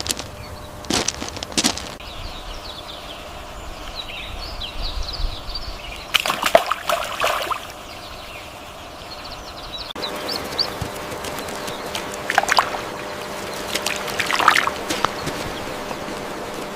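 Water splashing and sloshing in irregular bursts, with short high bird chirps in between.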